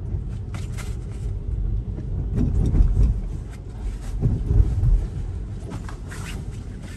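Cabin road noise of a Tesla electric car driving on a wet street in light rain: a steady low rumble from the tyres on wet pavement, swelling twice in the middle. Near the end a windshield wiper sweeps across the glass with a brief hiss.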